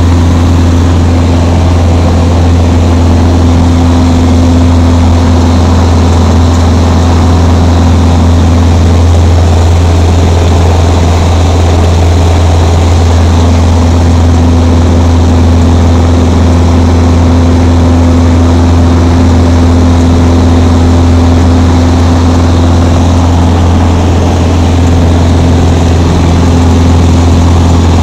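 Light aircraft's piston engine and propeller running with a steady, loud low drone.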